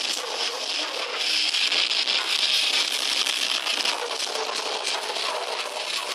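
A metal band playing live at full volume, with distorted electric guitars, bass, drums and shouted vocals merging into one dense, unbroken wash. Heard from the crowd through a small camera's microphone, it sounds thin and harsh, with no bass.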